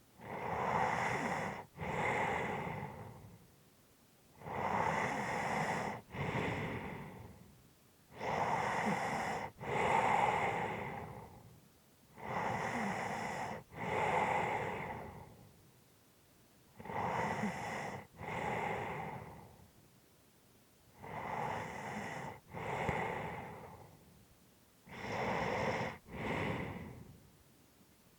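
A sleeping person breathing heavily, seven slow breaths about four seconds apart, each a drawn-in breath followed by a breath out with a short catch between them.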